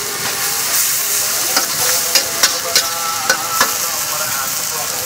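Noodles and vegetables frying on a hot steel griddle and in a wok, with a steady sizzle. A quick series of sharp metal clinks, a spatula striking the pan, comes between about one and a half and three and a half seconds in.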